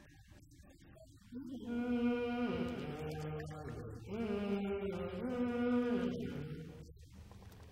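An old man's voice intoning words in a chant-like delivery, with long held notes that slide from one pitch to another, starting about a second and a half in.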